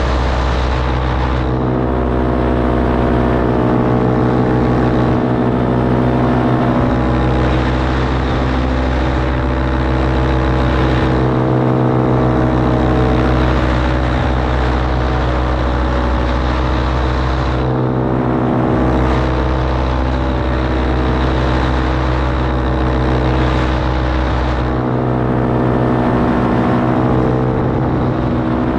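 Parajet Maverick paramotor in flight: its Vittorazi Atom 80 single-cylinder two-stroke engine and propeller running at a steady cruise throttle, loud and even.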